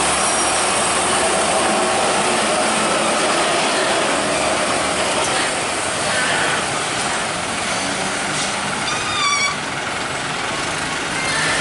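Heavy road traffic with trucks passing, a loud steady noise throughout. About nine seconds in comes a brief high-pitched squeal.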